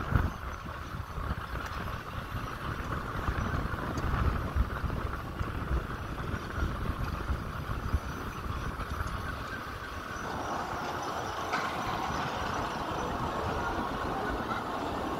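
Wind buffeting a phone's microphone on a moving tower swing ride, low and gusty. About ten seconds in the buffeting eases and a steadier, higher hiss takes over as the seat comes lower.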